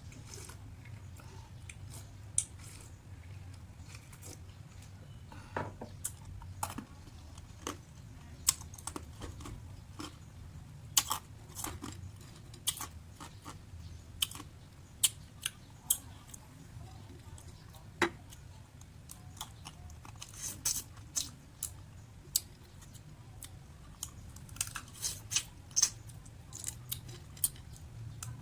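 Close-up eating sounds of Cambodian sun-dried clams (leas hal): chewing and crunching with many sharp, irregular clicks and snaps.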